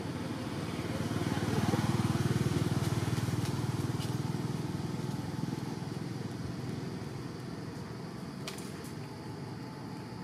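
Engine of a passing motor vehicle, swelling to its loudest about two seconds in and then slowly fading away.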